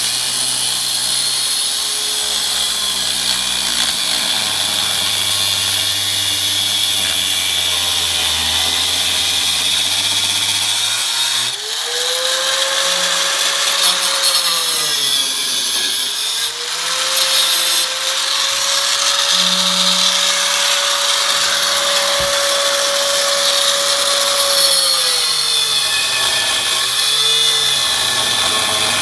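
Hand-held electric power tool grinding or cutting steel, with a constant hiss from the cut. Its motor whine drops in pitch several times as it bites under load and rises again when eased off.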